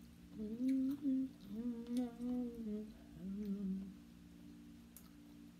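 A woman humming a few rising and falling notes with her mouth closed, in three short phrases, while chewing. A steady low hum sits underneath.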